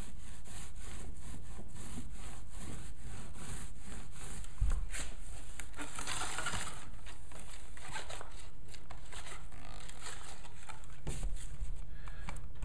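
Small paint roller rolling paint onto a backdrop, a soft rubbing and scraping. About six seconds in the roller is rolled through a plastic paint tray, briefly louder, just after a soft knock.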